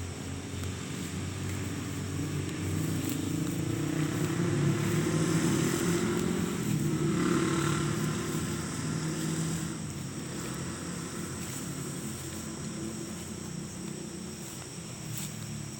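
A motor vehicle's engine passing by, growing louder over a few seconds and then fading away.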